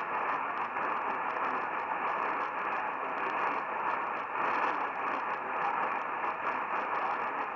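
Steady hiss and crackle of static from an AM radio receiver tuned to a weak, distant station, with faint steady tones buried in the noise.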